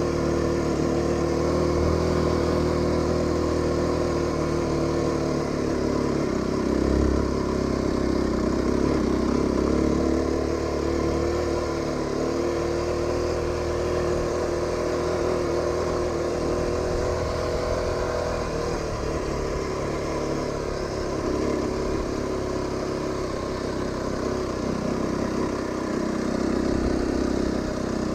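Aprilia RX125 motorcycle engine running while riding, its revs rising and falling.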